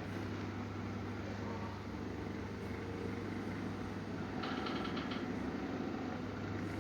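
Sleeping cat snoring softly over a steady low hum, with a brief higher-pitched sound about four and a half seconds in.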